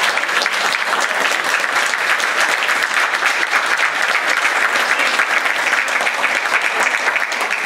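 Guests seated around a dinner table applauding: many hands clapping in a dense, steady patter that ends a speech.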